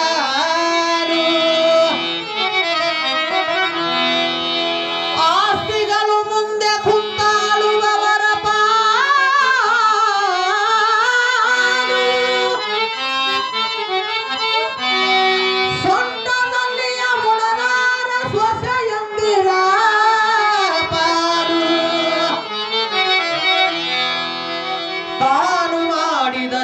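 Live bhajan music: a devotional song sung with a wavering melody over held, reed-like chords and a hand-drum beat.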